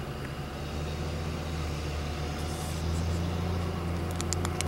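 Steady low hum of an idling motor vehicle engine, a little louder from about a second in, with a few quick sharp clicks near the end.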